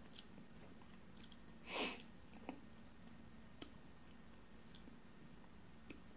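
Faint steady hum with a few soft clicks and one short rustle a little under two seconds in.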